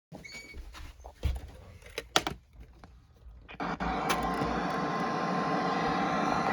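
Weather-radio receiver: a few clicks and thumps, then steady static, and about four seconds in a single steady alert tone comes on over the hiss. It is typical of the NOAA Weather Radio warning alarm tone that comes before a National Weather Service warning.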